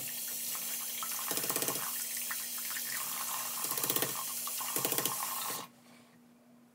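Bathroom sink tap running, turned on with a click at the start and shut off abruptly near the end. Three times the stream breaks into a brief, rapid rattling splash as a cartridge razor is rinsed under it.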